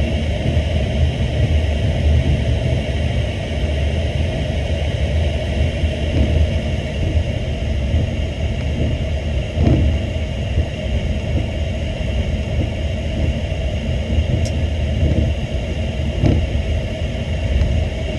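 Boeing 737-800 cockpit noise on the ground: a steady rumble of the idling engines and cabin air, with a few soft thumps from the wheels rolling over the taxiway.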